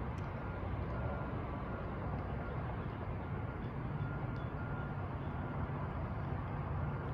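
Steady low rumble of road traffic and city background noise, with a few faint brief high tones.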